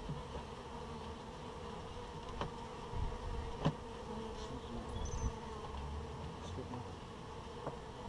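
Honeybees buzzing in a steady hum around their hive, with a few sharp clicks, the loudest about halfway through.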